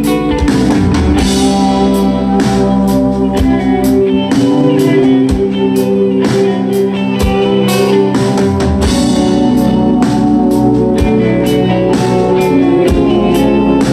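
Live band playing an instrumental passage: electric guitars and bass guitar hold sustained chords over a drum kit keeping a steady beat.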